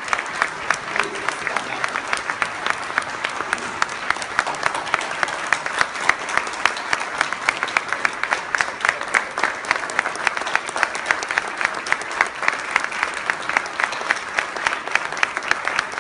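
A large audience applauding steadily, hundreds of hands clapping, with sharper evenly spaced claps at about three a second standing out above the rest.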